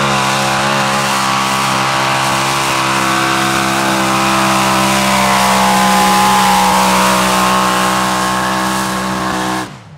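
Supercharged mini-modified pulling tractor engine at full throttle, held at steady high revs while it drags a weight-transfer sled. It cuts off suddenly near the end.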